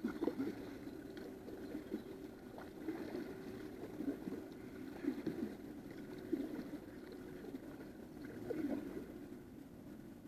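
A double-bladed kayak paddle dipping and pulling through calm water, with uneven splashes and water gurgling against the plastic hull of a sit-on-top kayak. A faint steady hum runs underneath until about three quarters of the way through.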